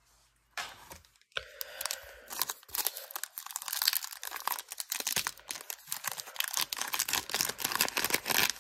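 Foil wrapper of a hockey card pack crinkling and tearing as it is pulled open, a dense run of crackles that starts about a second in.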